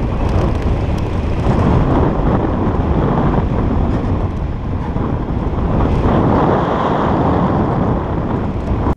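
Steady, loud wind noise from airflow buffeting the camera microphone on a hang glider in flight.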